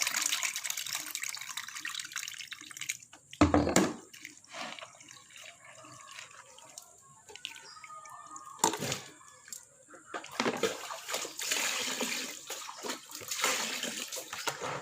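Water pouring and splashing as aloe vera pieces are rinsed of their slime in a basin, heavy at first and again in the last few seconds. A loud thump about three and a half seconds in and a sharp knock near nine seconds break the quieter middle.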